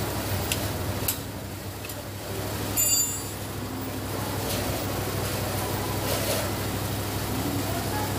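Hand tools working on the bolts of an outboard's lower unit: a few light metal clicks, then a brief metallic clink about three seconds in, over a steady low background hum.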